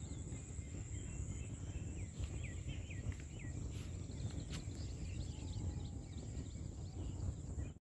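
Outdoor farmland ambience: a steady low rumble on the microphone under a thin, steady high insect buzz. A few short bird chirps come about two to three and a half seconds in, with fainter ones after.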